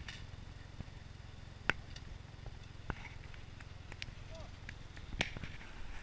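Off-road vehicle engine idling as a low, steady rumble, with a few sharp clicks and knocks over it and faint distant voices.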